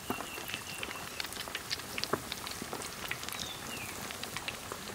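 Chicken legs deep-frying in hot oil in a wok: a dense, steady crackle and sizzle of popping oil. A thin high whistle is held near the start, and a short falling whistle comes about three and a half seconds in.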